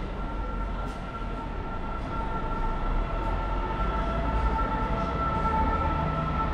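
A passing vehicle: a low rumble with a steady two-tone whine, growing louder about three seconds in.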